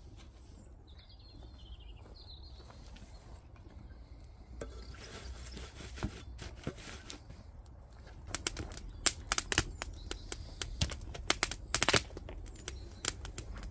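Wood fire burning in a metal fire pit as the planks catch. It is quiet at first, then from about eight seconds in come sharp, irregular pops and crackles of burning wood, several a second.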